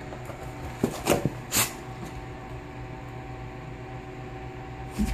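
A steady mechanical hum with several fixed tones. About a second in, two or three short scuffing noises.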